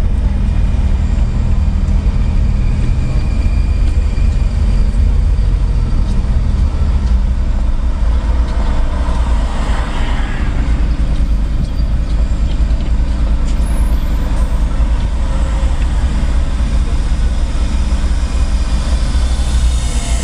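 Slow city traffic heard from a moving car: a steady low rumble of engines and road noise, with a brief hiss swelling about ten seconds in.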